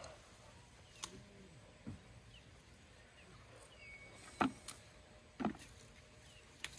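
Faint sharp snaps and clicks, about five spread irregularly roughly a second apart, with a few faint bird-like chirps in the background.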